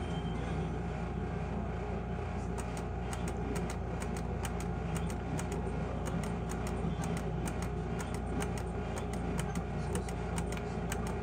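Skill game slot machine running its bonus spins: rapid, irregular clicking sound effects begin about two seconds in, over a steady hum and tone.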